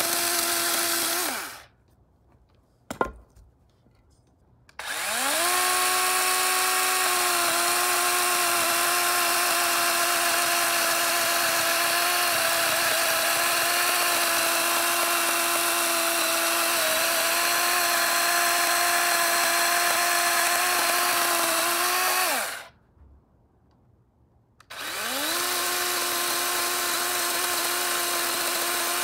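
DeWalt DCCS620 20-volt brushless battery chainsaw cutting through a log: a steady electric motor whine with chain noise. It winds down and stops about a second and a half in, with a single click in the pause. It winds back up with a rising pitch about five seconds in, runs steadily, stops again about twenty-two seconds in, and winds up once more near the end.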